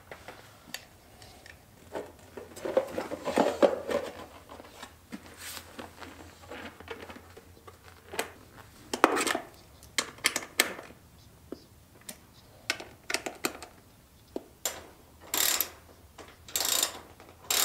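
Handling noises of moped parts: irregular small clicks, knocks and rustling of plastic and metal, with a run of brief louder knocks and scrapes in the second half as the seat is fitted onto the Puch Magnum moped.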